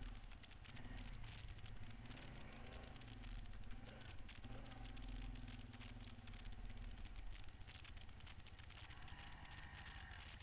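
Quad (ATV) engine running as the quad rides a rough dirt trail, its engine note rising and falling with the throttle over a steady low rumble.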